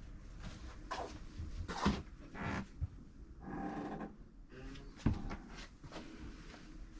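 Scattered knocks, bumps and rustles from someone moving through a small yacht cabin with a handheld camera, brushing past a fabric curtain, with a longer, rougher sound about halfway through.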